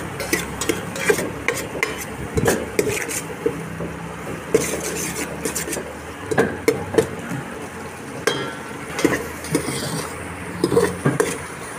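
A steel spoon stirring diced potatoes in liquid in a large aluminium pot, with irregular clinks and scrapes against the pot's sides. A steady low hum runs underneath.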